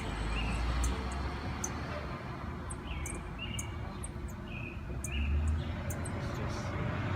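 A sparrow chirping: a handful of short chirps between about three and five and a half seconds in. Faint high ticks repeat throughout over a steady low rumble.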